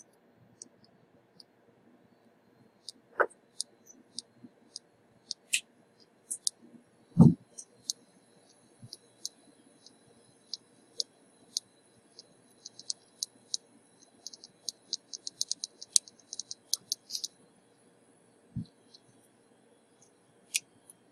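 Light, sharp clicks and ticks of small metal tools and stencils being handled on a workbench, with a quick run of them past the middle. One dull thump about seven seconds in, and a softer one near the end.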